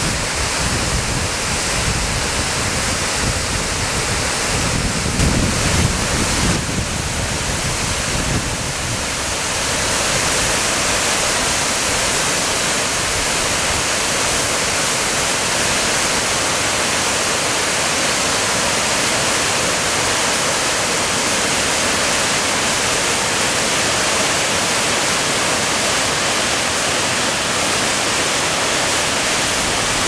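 Waterfall and whitewater mountain torrent rushing, a loud, even wash of water noise. The low end is uneven for the first eight seconds or so, then the sound holds steady.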